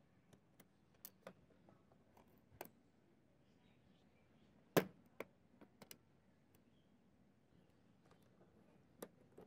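Small, sharp clicks and taps of metal tweezers and fingers on a smartphone circuit board, its connectors and plastic frame, about a dozen scattered irregularly, the loudest a little before the middle.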